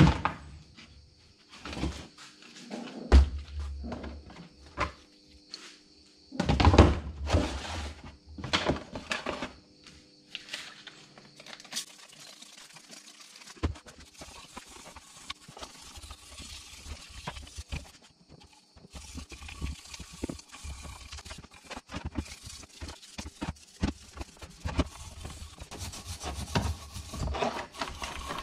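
An aluminium motorcycle crankcase half being handled and cleaned in a plastic tub of degreaser: irregular knocks and clatter of metal against plastic, loudest around seven to nine seconds in, followed by quicker, lighter scraping and tapping.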